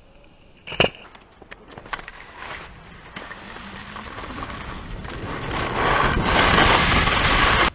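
Skis scraping and chattering over spring snow with wind rushing on the microphone, building steadily as speed picks up and cutting off suddenly near the end. A single sharp knock about a second in.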